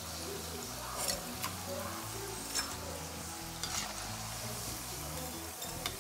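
Murukku sizzling steadily as they deep-fry in hot oil in a wok. A metal slotted spoon clinks sharply against the pan about five times as the spirals are turned and lifted out once golden.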